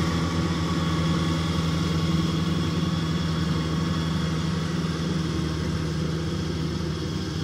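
Diesel engine of rice-harvesting machinery, a tracked rice carrier or the combine harvester working alongside it, running steadily at an even speed.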